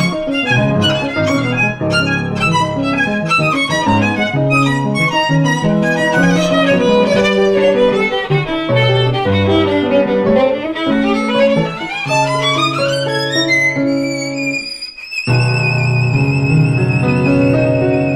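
Violin and grand piano playing together. Rapid runs of notes give way, about twelve seconds in, to a long climb upward; after a brief break, the violin holds a high note with vibrato over sustained piano chords.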